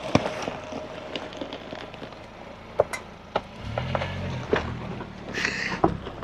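Four-by-four truck driving slowly over a rough trail: a steady low rumble with scattered knocks and rattles, the engine rising briefly about four seconds in.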